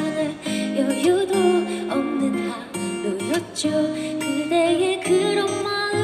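Live performance of a slow song: a woman singing into a microphone over strummed acoustic guitar, her voice gliding between held notes.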